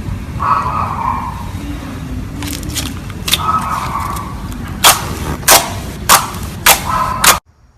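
Slime being squished and worked by hand, with a low rumble of handling and wet squelches, then four sharp pops about half a second apart. The sound cuts off suddenly near the end.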